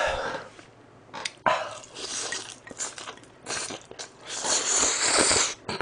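A person eating close to the microphone: bites and chewing of spicy stir-fried instant noodles wrapped in dried seaweed, then a long slurp of the noodles about four seconds in.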